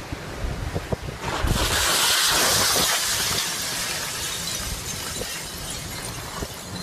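Wind buffeting a phone's microphone, a rushing hiss that swells about a second and a half in and slowly eases off, with a few low knocks of handling.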